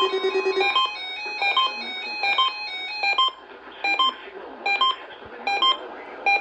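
Electronic beeping tune: a short pattern of clean synthesized notes repeats about every 0.8 seconds. Under it, a fast pulsing low tone stops under a second in.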